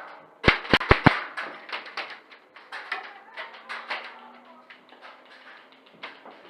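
A rapid cluster of four loud, sharp knocks within about half a second, followed by a few seconds of irregular smaller clicks and knocks that thin out.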